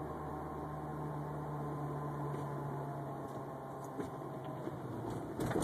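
An unidentified steady whining hum, with a low drone and fainter higher tones above it. A sudden loud burst of noise comes in at the very end.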